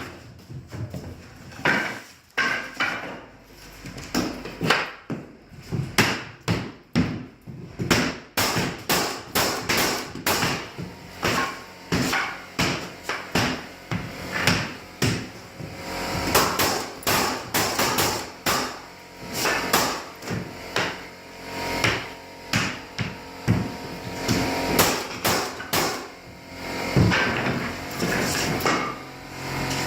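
Repeated hammer blows on wood, struck irregularly about once or twice a second, as hardwood flooring is worked.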